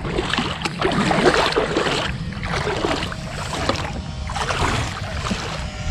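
Water splashing and sloshing in irregular surges, starting suddenly, with no motor whine.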